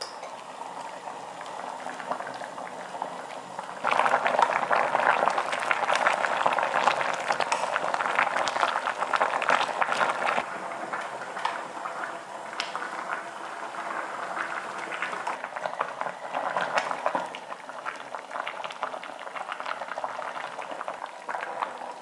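Gochujang stew boiling hard in a stainless steel pot: dense bubbling and popping, louder from about four seconds in.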